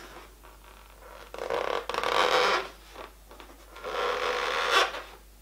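Marker pen drawing on an inflated latex balloon, squeaking and scraping across the rubber in two strokes: one about a second in and one near the end.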